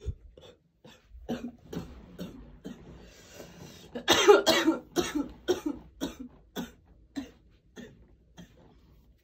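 A woman coughing hard and repeatedly after inhaling bong smoke: a long fit of hacking coughs, loudest and most tightly packed about four seconds in, then tapering off.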